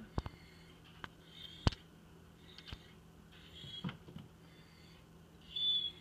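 Quiet room with a few sharp clicks, the sharpest about midway, and several short breathy sniffs, the loudest near the end.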